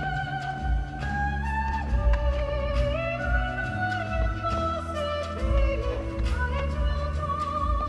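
Orchestral music with held string and wind-like melody lines playing through loudspeakers for a pyromusical display. Deep thuds recur about every half second to a second, with sharp cracks scattered among them, as of firework shells bursting.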